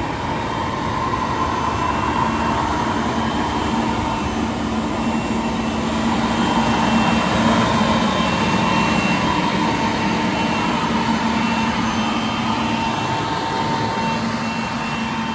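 Steady running of the Case Quadtrac 620 tractor and the Väderstad Rapid drill's hydraulic seed fan: a constant drone with a steady whine over it, swelling slightly in the middle.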